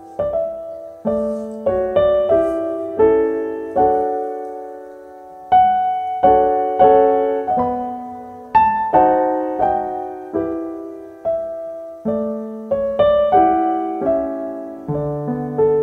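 Slow, gentle solo piano background music: single melody notes and chords struck a little under once a second and left to ring and fade.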